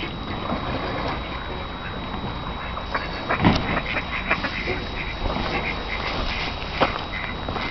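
Ducks quacking repeatedly, with a dull thump about three and a half seconds in.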